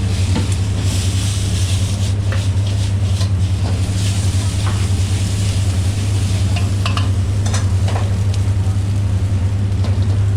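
Food sizzling in a frying pan as a spatula stirs and scrapes it, with scattered short clicks, over a steady low hum.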